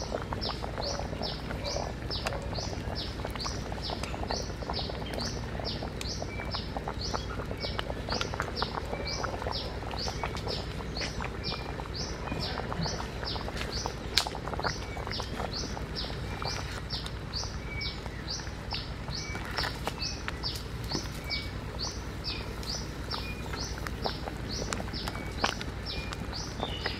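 A bird calling a short, high, falling note over and over, about once a second, with a fainter second call every couple of seconds. Scattered light clicks sound underneath, with a sharper click about halfway through.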